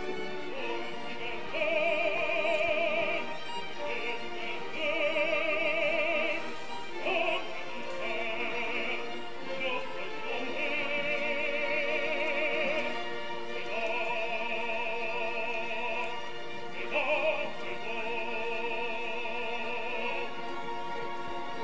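Operatic singing over an orchestra: a high voice holds long notes, each a second or two, with a wide vibrato and short breaks between them.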